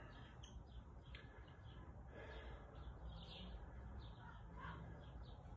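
Near silence: room tone with a steady low hum and scattered faint bird chirps.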